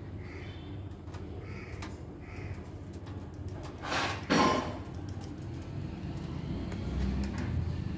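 Crows cawing faintly, four short calls in the first few seconds. About four seconds in comes a brief, loud rustling scrape.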